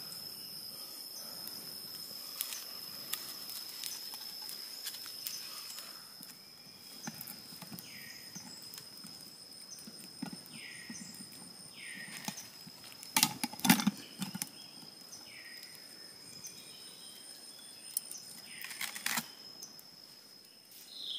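Forest ambience: a steady high insect drone, with a short falling call repeated about six times. About two-thirds of the way through comes a cluster of loud knocks.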